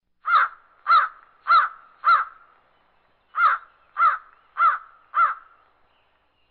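A bird's calls, eight in all in two runs of four, about two calls a second, against complete silence.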